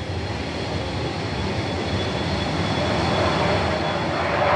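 Jet aircraft engine noise growing steadily louder as a carrier fighter comes in on its landing approach, with a thin steady high whine above it.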